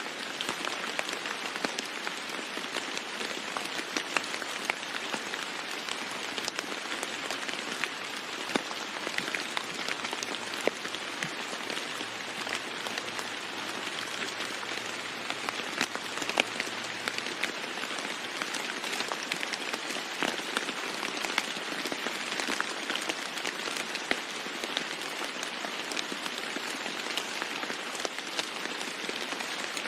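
Steady heavy rain falling on a roof, a constant hiss dotted with many sharp individual drop taps.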